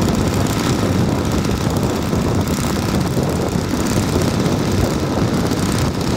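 Radio-controlled model aircraft in flight: a steady, even engine noise with a rough low rumble underneath, holding level throughout.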